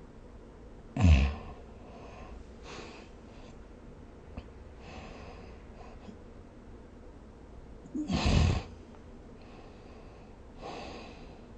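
A sleeping person snoring: two loud snores with a low rumble, about a second in and again around eight seconds, with softer breaths in between.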